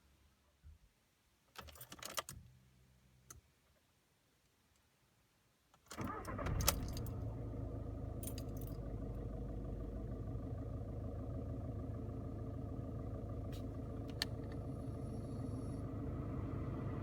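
Keys jangle and click, then about six seconds in the diesel engine of a 2011 Volkswagen Polo TDI is started. It catches at once and settles into a steady idle. It is running on replaced fuel injectors, with the noise from the failed injectors gone.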